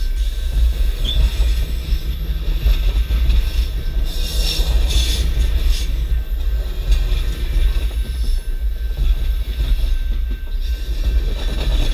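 Passenger train cars rolling past close by: a steady, loud rumble of steel wheels on the rails, with a brief burst of harsher, higher-pitched noise about four seconds in.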